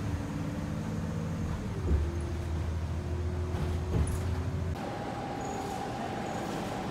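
Bus engine running steadily, heard from inside the passenger cabin, with two short knocks about two and four seconds in. About two-thirds through it cuts to the even background hum of a transit station hall, with a faint steady tone.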